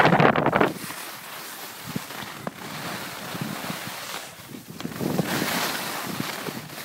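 Skis sliding and scraping over packed snow on a downhill run, with wind rushing over the microphone. The hiss is loudest right at the start and swells again about five seconds in.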